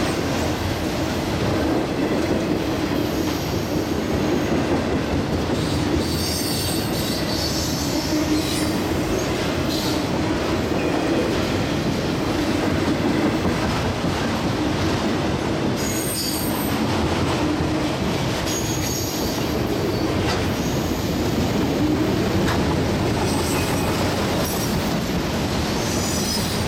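Freight train of autorack cars rolling past close by: a steady rumble of steel wheels on the rails, with high-pitched wheel squeal breaking in now and then.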